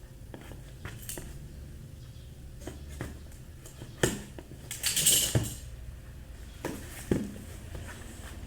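A cardboard box being opened and its contents handled: scattered light clicks and knocks, a sharp knock about four seconds in and another about seven seconds in, and a burst of packaging crinkling around five seconds in.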